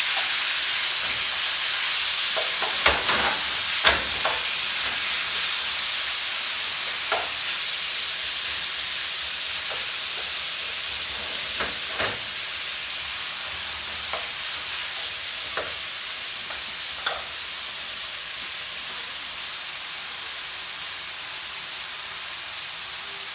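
Chicken frying in olive oil in a hot pot, with a steady sizzle that fades slowly. A few sharp clicks and knocks of a utensil against the pot come through, most of them in the first half.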